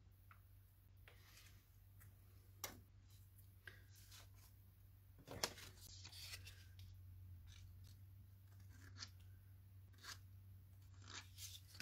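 Faint rustles and light clicks of cardstock being handled and lifted, over a steady low hum, with one sharper tap about five and a half seconds in.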